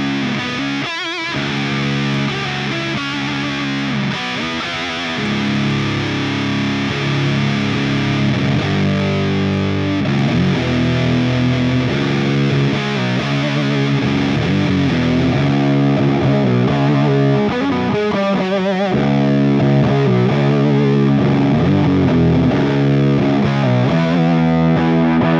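Down-tuned electric guitar (C# tuning) played through an EarthQuaker Devices Hizumitas fuzz pedal into a ToneX One modelling an Orange OR120 amp, playing sustained, heavily fuzzed chords with a couple of brief breaks between them.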